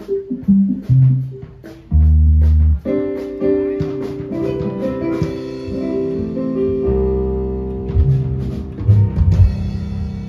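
Band sound check through a stage PA: an electronic keyboard plays held chords over deep bass notes, with a few drum hits near the end.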